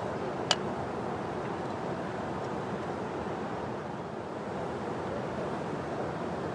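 Steady rushing of a flowing river, with one sharp click about half a second in.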